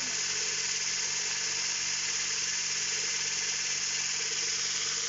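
Handheld electric stick blender with a whisk attachment running at one steady speed, whisking eggs into cake batter in a stainless steel bowl: an even motor whir with a strong hiss.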